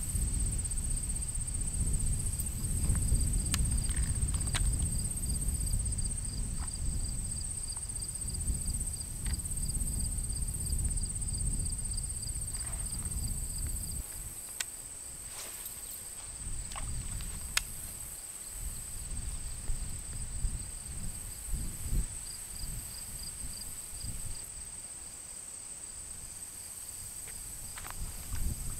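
Insects calling steadily, a high continuous buzz over a lower, rapidly pulsing trill. A low rumble runs under them for the first half and a few sharp clicks come through.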